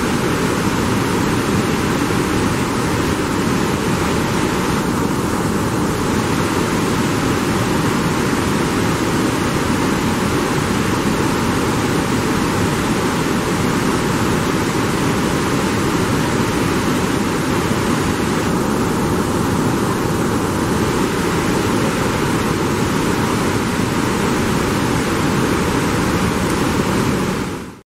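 Steady, loud rush of the Iguaçu Falls: large volumes of water pouring over the cliffs and crashing into the gorge below.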